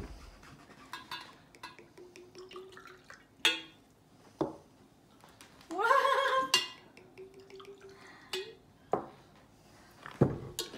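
Liquor poured from a bottle into a shot glass, the pitch rising as the glass fills about six seconds in, amid clinks of glass and knocks of bottles and glasses set down on a wooden table.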